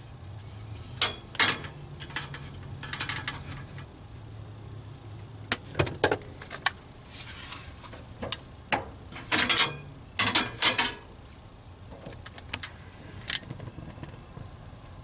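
Scattered short clicks and rattles in irregular clusters over a steady low hum.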